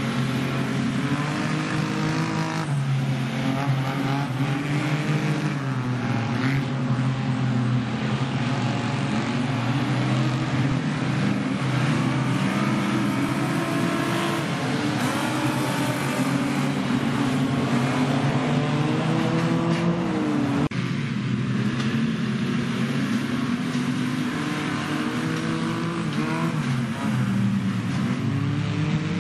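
Several dirt-track stockcar engines revving hard as the pack laps the oval, the pitch of each engine rising and falling with the throttle, overlapping in one continuous loud din.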